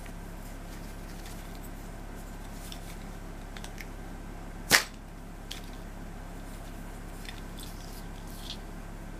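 The rubber tubing of a Koami bird-scaring slingshot stretched and let go, snapping back once with a single sharp crack about halfway through. Faint clicks and rustles of the plastic frame and parts being handled come before and after.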